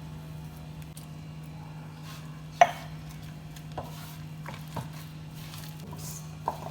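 Dough being mixed by hand in a mixing bowl: a few short knocks against the bowl, the loudest and sharpest about two and a half seconds in, over a steady low hum.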